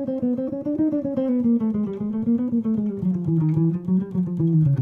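Hollow-body electric guitar playing a fast chromatic jazz line with alternate picking, about six single notes a second, winding downward in pitch as it outlines an augmented triad.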